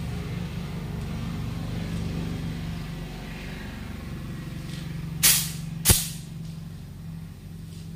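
Small tyre being inflated from a shop air line through a hand inflator with dial gauge, over a steady low hum. About five seconds in come two sudden loud bursts: a short hiss, then a sharp pop.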